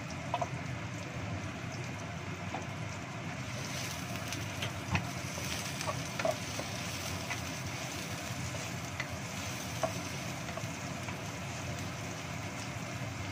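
Sliced shallots and garlic sizzling in hot oil in a wok, stirred with a wooden spatula that taps and scrapes the pan now and then. The sizzle grows brighter a few seconds in.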